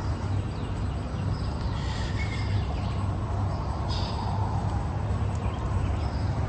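Outdoor ambience: a steady low rumble with a few short bird chirps, about two and four seconds in.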